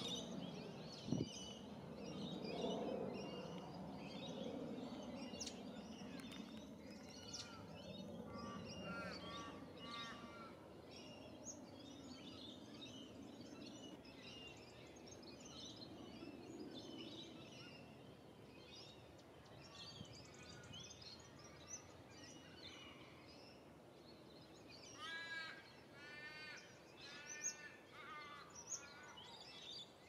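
Faint outdoor birdsong, several wild birds calling with short chirps and whistles throughout, over a low background rumble. Twice a bird gives a quick run of repeated rising-and-falling notes, the second run near the end being the loudest part.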